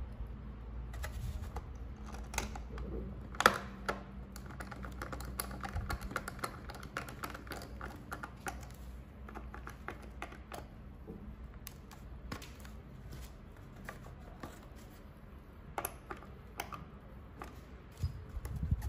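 Irregular small clicks and taps of a precision screwdriver and small M2 screws against a plastic servo and its mount as a tail servo is screwed in, one click louder than the rest about three and a half seconds in. A low steady hum lies underneath.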